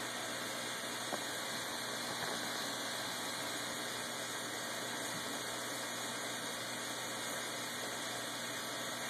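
Steady, even hiss of water running in the turtle tank, with no knocks or other distinct events.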